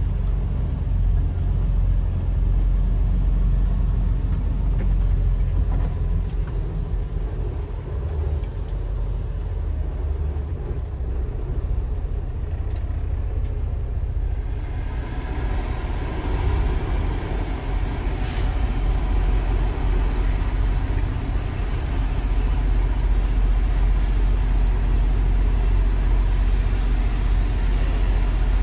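A semi-truck's diesel engine running as the truck creeps along at low speed, heard from inside the cab as a steady low rumble. About halfway through, a steady hiss joins it.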